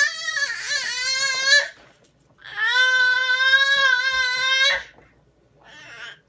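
An infant vocalizing: two long, high-pitched, drawn-out calls of about two seconds each, followed by a short, softer one near the end.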